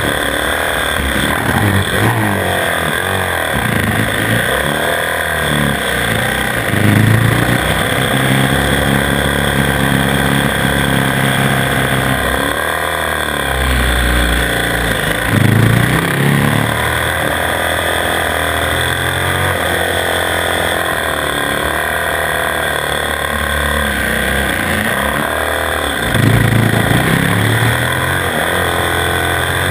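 Onboard sound of a 450 cc single-cylinder four-stroke supermoto engine being ridden hard, its revs climbing and dropping every few seconds as it accelerates out of and slows into tight corners.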